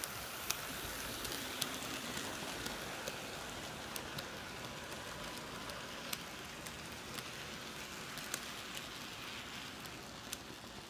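HO-scale model train rolling past on sectional track: a steady whir with sharp clicks at irregular intervals as the wheels cross the rail joints, easing off slightly near the end as the train moves away.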